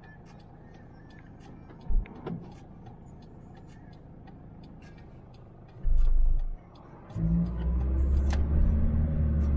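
A Toyota HiAce's 1KZ-TE turbo diesel heard from inside the cab: it runs quietly at low revs through a roundabout, then after a low thump at about six seconds it grows to a much louder low rumble as the van pulls away.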